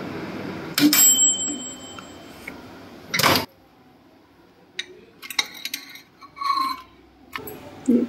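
An IFB 17PM-MEC1 solo microwave's mechanical timer runs out with a single bell ding about a second in, marking the end of the cooking time, followed about two seconds later by a short clunk from the door. Later, metal tongs clink lightly against the plate and the glass turntable as the food is lifted out.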